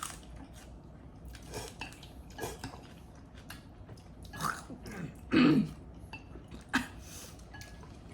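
Eating sounds at a table: soft chewing and mouth noises with small clicks of utensils and dishes, and one louder short sound about five seconds in.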